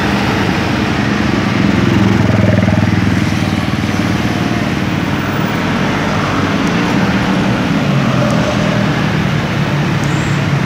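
Slow-moving road traffic: diesel box trucks rumbling past at low speed, with a motorcycle going by. The engines are loudest about two to three seconds in.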